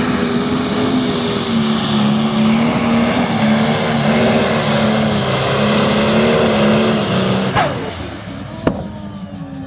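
Diesel engine of a modified John Deere pulling tractor running flat out under load while it drags a weight sled, its pitch wavering slightly. Near the end the engine is cut: a whistle falls sharply in pitch and the sound drops away, followed by a single click.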